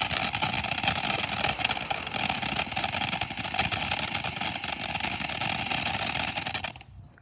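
A lit ground firework burning with a loud, steady hiss and fine crackle as it sprays sparks. It cuts off abruptly about seven seconds in as it burns out.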